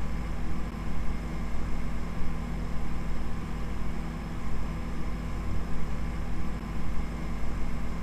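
A steady, dense low drone with hiss, holding several fixed tones and never changing.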